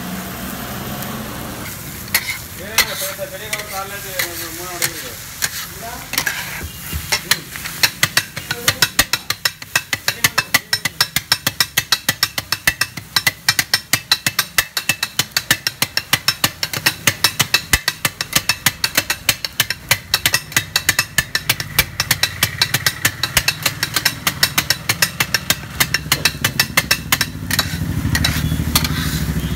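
Two flat steel spatulas chopping kothu parotta on a hot griddle: rapid, rhythmic metal clanging over sizzling. The strikes are sparse at first and settle into a steady fast clatter several times a second from a few seconds in.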